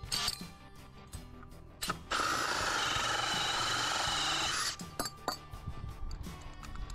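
Makita drill fitted with a 2½-inch Lenox hole saw running in one steady burst of about two and a half seconds, starting about two seconds in and stopping abruptly, with handling clicks before and after.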